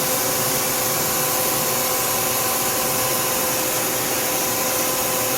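Tsugami S206 CNC Swiss lathe running with an axis being jogged: a steady hiss with a few constant whining tones, holding level throughout.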